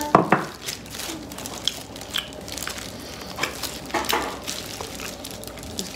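Eating at a table: scattered light clicks and taps of dishes and utensils, with chewing, as pieces of boiled chicken are handled and eaten.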